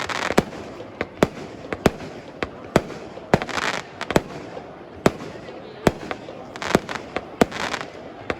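Fireworks: an irregular rapid series of sharp shell bangs, one every half second or so, with short patches of hissing crackle between them.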